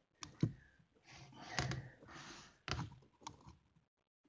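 Faint plastic clicks and rustling as a hand handles an AcuRite digital thermometer and presses its buttons, a handful of separate clicks.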